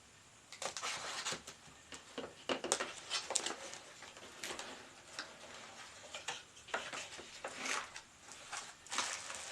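Packaging being handled during an unboxing: irregular clicks, taps and short rustles of plastic and cardboard, with no motor running.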